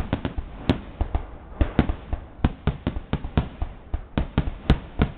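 Aerial firework shells bursting in quick succession: a rapid, irregular run of sharp bangs, about four or five a second.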